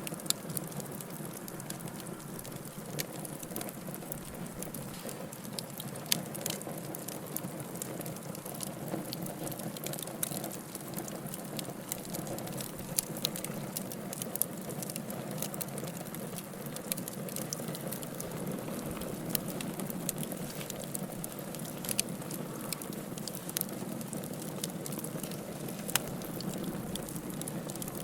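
Wood campfire burning with a steady low rush of flame, broken by many small crackles and, every few seconds, a sharp louder pop.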